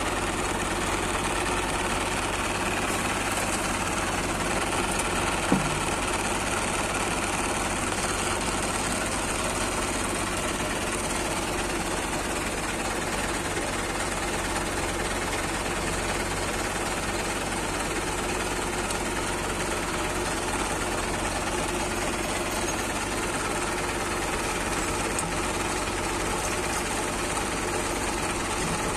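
Diesel tractor engine running steadily at idle. There is a single short knock about five and a half seconds in.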